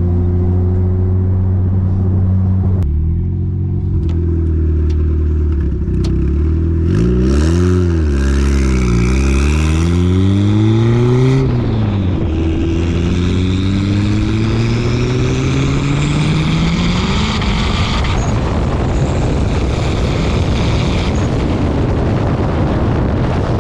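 Turbocharged D16Z6 1.6-litre four-cylinder of a 1993 Honda Civic running under load. Its revs swing up and down about a third of the way in, then climb steadily for several seconds with a rising turbo whistle above the engine note. For the last few seconds the engine note gives way to a steady rushing noise.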